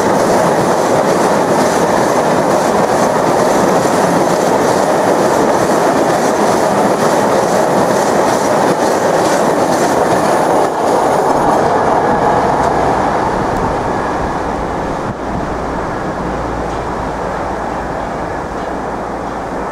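Freight train of double-deck car-carrier wagons rolling past at close range, wheels clicking over the rails. The noise fades away after the last wagon passes, about ten seconds in.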